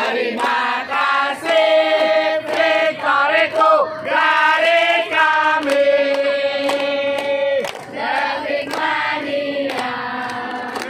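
A crowd of supporters, mostly women and girls, singing a team chant together and clapping along, with long held notes; one held note breaks off sharply about three-quarters of the way through.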